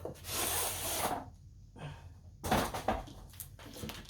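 A diamond painting kit's box being handled and its contents pulled out: a rustling slide lasting about a second, then a few light knocks and taps.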